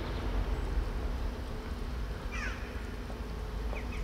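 Outdoor ambience while cats eat: a steady low rumble, with a short high descending chirp about two and a half seconds in.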